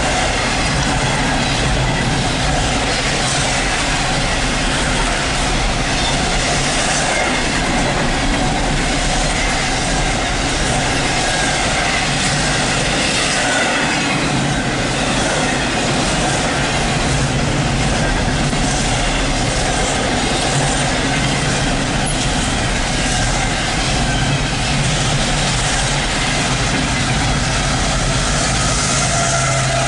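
CSX double-stack intermodal freight train rolling past at close range, a loud steady rumble of steel wheels on rail. Near the end a mid-train diesel locomotive passes and adds a low engine drone.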